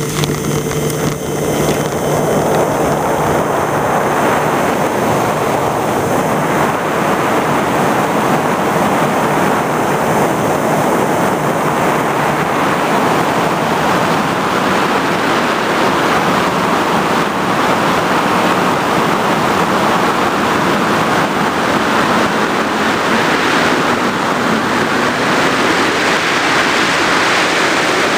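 FPV racing drone in fast flight, heard from its onboard camera: a steady rush of wind and propeller noise. A steady motor hum fades under it about four seconds in.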